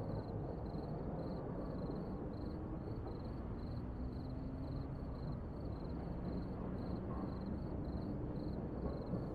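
Night-time outdoor ambience: a steady low hum of background noise with crickets chirping faintly in a regular pulse, about twice a second.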